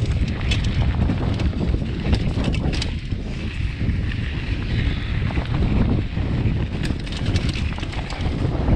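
Heavy wind rumble on the microphone while riding a mountain bike down a rough dirt trail, with bursts of metallic clatter from the chain slapping the bare chainstay, whose protector has been left off.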